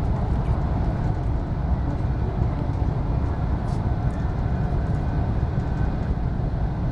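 E4 series Max double-decker Shinkansen running, heard from inside the passenger car as a steady, low rumble of running noise.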